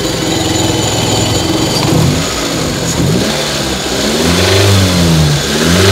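Mitsubishi Lancer's engine idling, then revved by hand at the throttle in about three blips, each rising and falling back. A slight pinging is starting to show under the revs.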